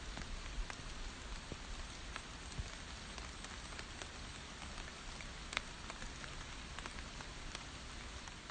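Rain falling on the leaves of pokeweed plants: a steady patter with individual drops ticking sharply now and then, one louder drop hitting about five and a half seconds in.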